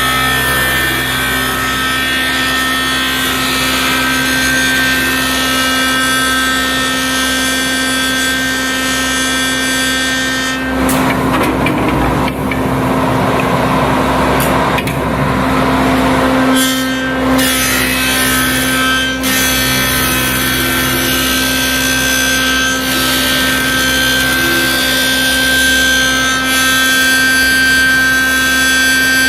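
Junfeng CCL-1100 rotary-cutter wood copy lathe running with a steady hum and high whine. Near the middle, for about six seconds, a rougher, noisier rasp of the cutter working the wood.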